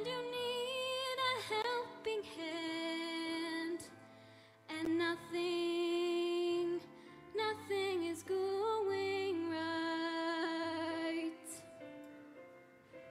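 A girl soloist singing a slow, soft melody into a handheld microphone, with long held notes and vibrato over quiet backing music. She sings in phrases, with a short break about four seconds in and the line fading near the end.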